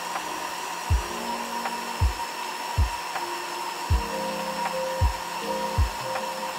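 Electric mixer grinder running steadily while blending a smoothie, heard under background music with a deep beat about once a second.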